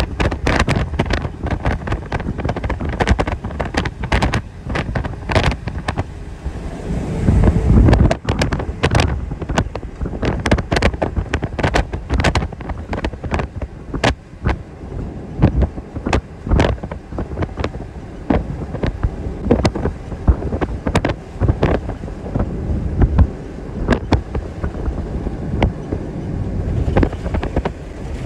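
Wind blowing over the phone's microphone from a moving vehicle: a loud, low rush broken by many irregular sharp crackles, swelling louder about seven seconds in.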